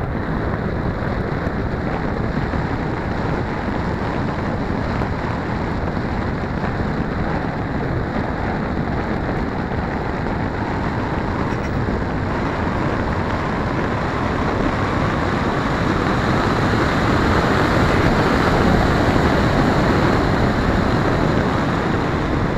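Steady rush of wind over the microphone of a keychain camera riding on a radio-controlled twin-boom pusher plane in flight, mixed with the noise of its pusher motor and propeller. It grows a little louder about three-quarters of the way through.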